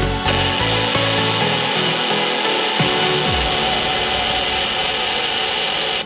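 Fabris cold saw's circular blade cutting steel bar under coolant, a steady continuous cutting sound that stops suddenly near the end.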